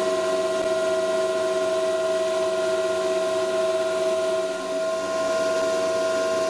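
Rover K CNC router machinery running with a steady hum made of several held tones over a hiss. It comes as the bamboo butcher-block countertop is set on the machine's bed for the sink cut-out.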